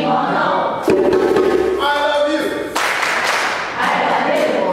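A group of voices singing and chanting in short phrases about a second long, with some clapping.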